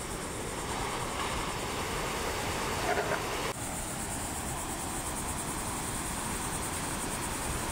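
Steady noise of breaking ocean surf and churning white water. It changes abruptly a little over three and a half seconds in.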